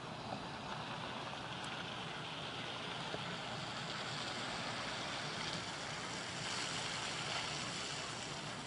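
Steady hiss of distant road traffic on wet, snowy streets, swelling a little about six seconds in.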